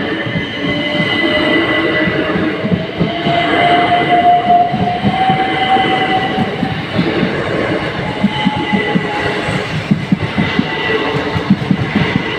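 Two coupled Southeastern Class 375 Electrostar electric multiple units passing over a level crossing: a rising whine in the first half, then a fast, even clatter of wheels over the rail joints.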